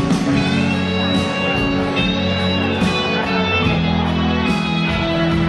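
Live band playing an instrumental passage, guitar prominent over held chords.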